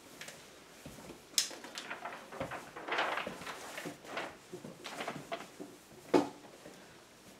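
Sheets of paper being handled and rustling, with scattered light clicks and knocks and one sharper knock near the end.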